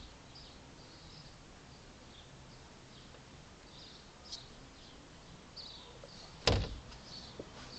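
A Chevy Astro van door shut with one solid thunk about two-thirds of the way through. Faint high chirps sound throughout.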